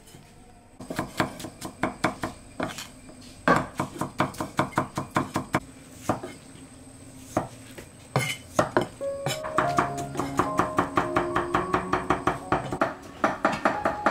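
Heavy cleaver chopping raw meat on a wooden chopping block, in quick runs of about four strikes a second with short pauses. Background music with a stepped melody joins about nine seconds in, under the chopping.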